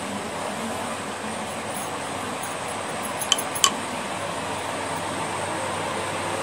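Steady mechanical room hum, like a running fan, with two short clinks about a third of a second apart a little over three seconds in.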